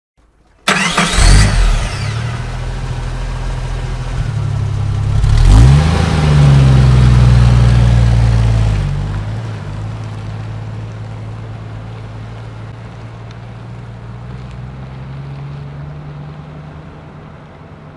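A car engine bursts into sound and revs up twice, then runs steadily and slowly fades away as the car drives off.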